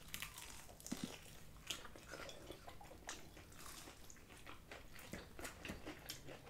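People biting into and chewing crispy fried chicken wings: faint, irregular crunches and crackles of the fried coating.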